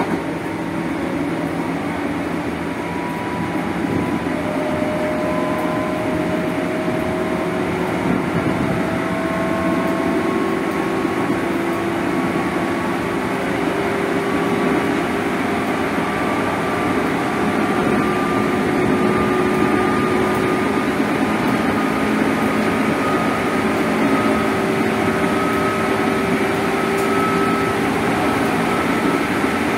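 JR East 205 series motor car running at speed, its DC traction motors whining loudly, the pitch climbing slowly as the train keeps gathering speed, over the rumble of wheels on rail.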